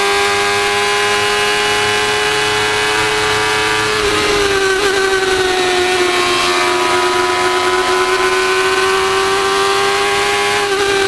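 A Formula 1000 racing car's 1000 cc motorcycle engine running at high revs, heard from the car itself. It holds a high, steady note, dips in pitch about four seconds in, then climbs slowly, with another drop at the very end.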